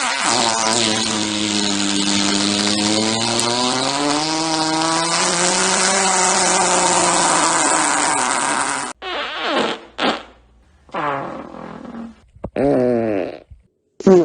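A fart sound effect: one long, drawn-out fart of about nine seconds with a wavering pitch, followed by a string of shorter farts with gaps between them, the last one short and loud.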